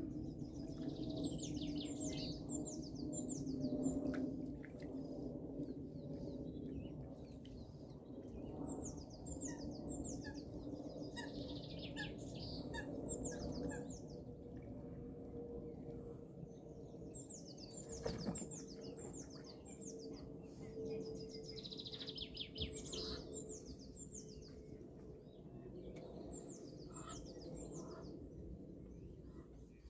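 A small songbird singing repeatedly, each phrase a quick run of high, falling notes, coming back every few seconds over a low steady drone.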